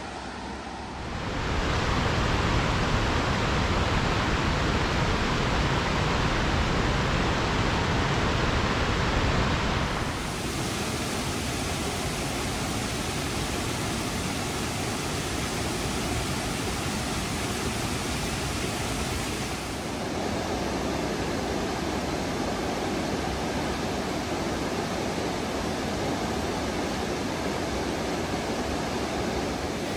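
Whitewater of the Wenatchee River, running high with spring run-off, rushing over rocks: a steady, even rush that gets louder about a second and a half in and changes in tone about ten seconds in and again near twenty seconds in.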